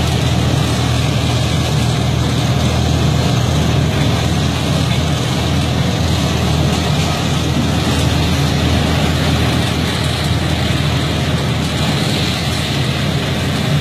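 Asphalt paver and small tandem road roller at work, their engines running steadily: a loud, even machinery noise with a low hum underneath.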